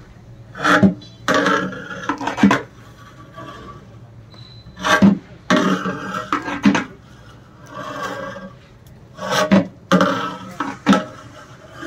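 Flat metal paddle scooping and turning cooked biryani rice in a large aluminium pot, scraping against the pot in short strokes that come in bunches a few seconds apart.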